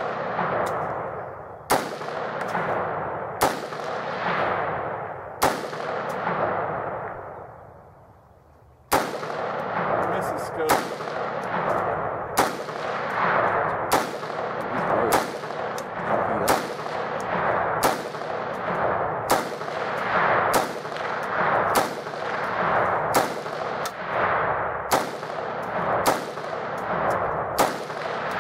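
AR-15 rifle fired from the bench: three shots about two seconds apart, a pause of a few seconds, then a steady string of about one shot a second. Each shot is followed by a long fading echo.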